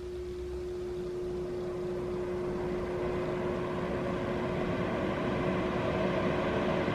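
Vornado CYLO50 air purifier's fan running on its medium setting: a steady rush of air that grows gradually louder, with a steady hum under it. It sounds like a house fan and is a little loud.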